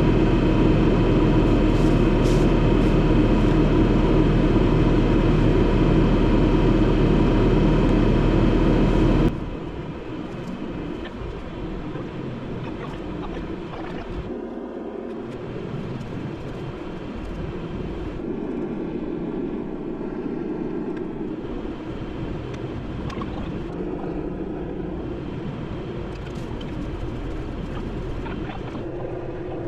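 Bobcat T650 compact track loader's diesel engine running steadily and loud, close by. About nine seconds in, the sound cuts off abruptly to a quieter engine running further off, rising and falling a little.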